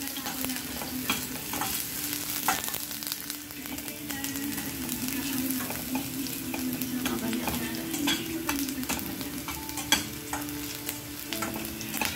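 Chopped onion and garlic sizzling in oil in a stainless steel frying pan, with a metal spatula scraping and clicking against the pan as it is stirred. A low steady hum runs underneath.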